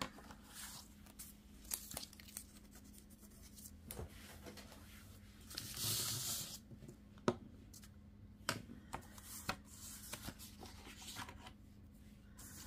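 Paper being handled: rustling and sliding, with a longer rustle about six seconds in, and a few light clicks and taps as a scoring board and tools are moved and set down.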